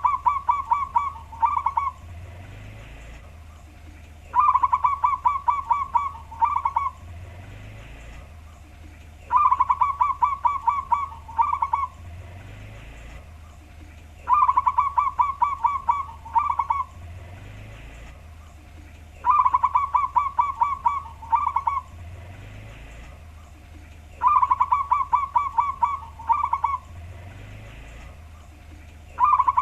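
Zebra dove (perkutut) cooing in a deep tone: a phrase of quick rolling notes, repeated about every five seconds, six times in all. A steady low hum runs underneath.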